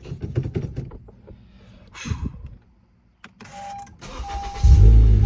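Honda Civic fitted with an Injen cold air intake being started: a few clicks, then a steady electronic beep, then the starter cranks. Near the end the engine catches with a loud flare of revs, then drops toward idle.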